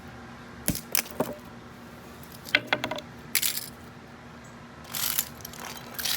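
Broken metal door handles and lock parts being struck and smashed: a series of sharp metallic hits and clinks at irregular intervals, some ringing briefly, with small parts clattering.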